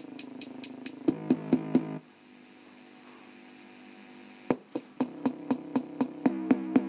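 Electronic bass-test music with a drum-machine beat, played through a CRT TV's built-in speaker: quick ticks about five a second over a pitched bass line. About two seconds in it drops to a quiet pause, and it comes back with a sharp hit after about four and a half seconds.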